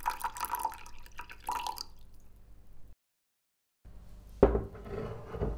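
Trickling, dripping liquid sounds that cut off about three seconds in. After a short gap comes a single sharp knock, followed by more noise.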